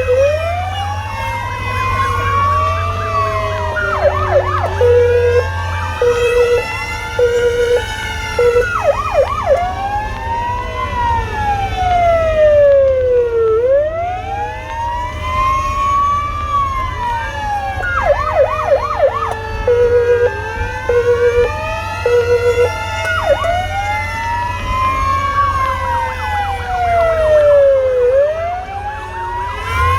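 Several emergency-vehicle sirens wailing at once, their slow rising and falling tones overlapping. Twice they break into rapid yelping together with a short tone repeated a few times, and a low engine and road rumble runs underneath.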